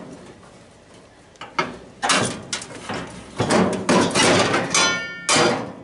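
Pliers working a metal part inside a sheet-metal cabinet: a run of metal clanks, knocks and scraping that grows busier after the first second and a half, with a short metallic ring near the end.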